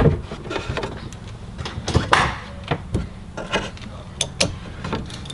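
Scattered light clicks and knocks of a wooden birch box and its metal carriage-bolt hardware being handled as it is held up and a nut is fitted onto the bolt.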